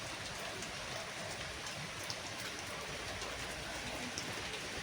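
Steady rain falling, with a few scattered drops ticking.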